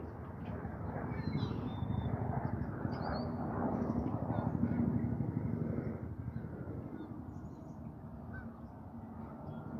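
Wind buffeting the phone's microphone in a fluctuating rumble, with a few short, faint bird chirps above it.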